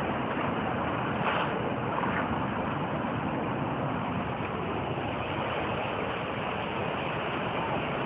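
Steady rushing roar of a large waterfall, an even wash of falling water with no break or change.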